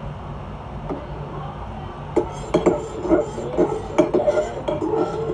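A mixing tool knocking and scraping against a bowl while stirring a soap-and-glue slime mixture. It starts about two seconds in as quick, irregular clinks, each with a short ring.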